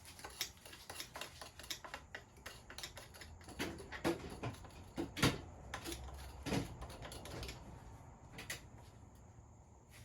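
Irregular clicks and knocks of tools and metal parts being handled during a dirt bike teardown, a few louder knocks in the middle, thinning out near the end.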